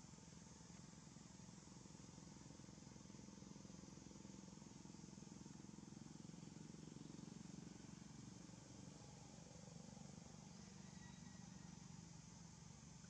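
Near silence: faint steady background hiss with a low hum that grows slightly louder in the middle.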